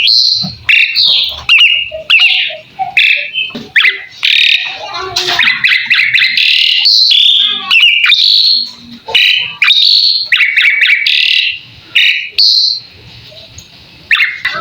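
Javan pied starling (jalak suren) singing a rapid, varied song of short whistles, squeaky chirps and clicks, with a brief lull near the end.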